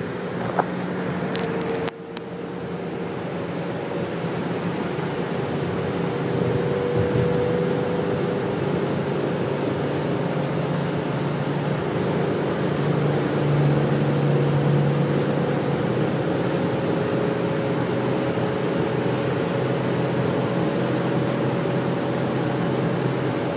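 Engine drone and road noise of a bus at highway speed, heard from inside the cabin. A short dip about two seconds in, after which the engine note builds slowly and then holds steady.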